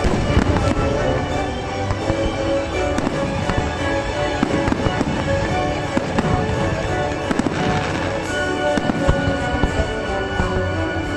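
Fireworks bursting and crackling in rapid succession, over music with sustained tones.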